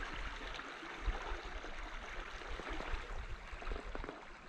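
Flowing river water: a steady, soft rushing hiss of current, with irregular low rumbles underneath.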